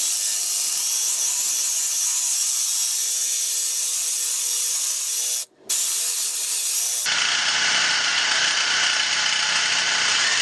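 Reciprocating saw cutting through a metal handlebar tube, running steadily. It stops briefly about five and a half seconds in, then starts again.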